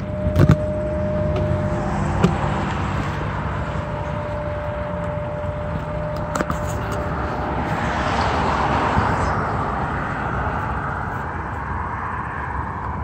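Street traffic: a steady low rumble of road vehicles, with one car passing by, its tyre and engine noise swelling to a peak about eight or nine seconds in and then fading. A few sharp clicks stand out over it.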